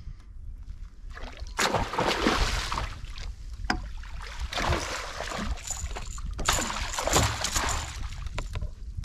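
A hooked northern pike thrashing at the surface beside the boat as it is netted, water splashing in about three bursts.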